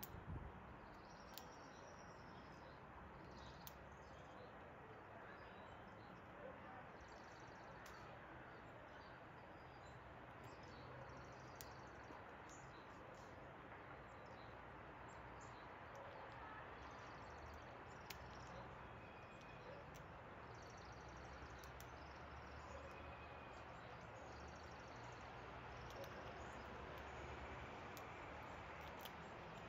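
Faint outdoor ambience: steady low background noise with scattered faint bird chirps and a few small clicks.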